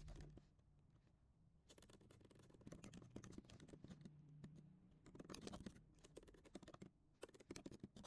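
Faint typing on a computer keyboard: irregular runs of quick key clicks, with a short pause about a second in.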